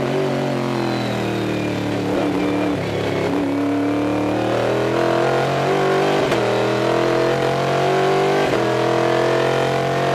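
Stock Car V8 race car engine heard from inside the cockpit. Its pitch falls over the first few seconds as the car slows, then climbs under full acceleration, with quick breaks for upshifts about six and eight and a half seconds in.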